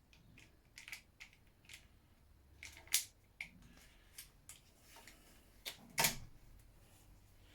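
Scattered light clicks and knocks from small parts and hand tools being handled while dismantling a scooter, with two sharper knocks about three and six seconds in.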